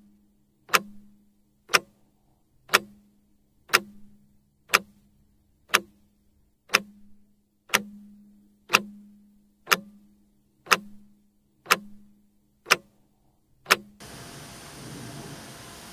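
Twin-bell alarm clock ticking loudly, one sharp tick a second, thirteen ticks over a faint steady low hum. Near the end the ticking stops and a steady hiss takes over.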